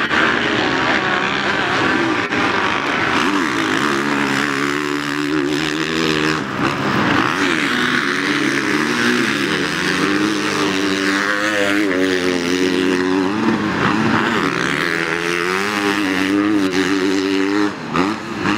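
Several racing engines running hard at once, their pitch rising and falling as they rev through the gears and overlapping one another.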